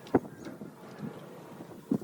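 Two short, sharp knocks, one just after the start and one near the end, over a low background rumble.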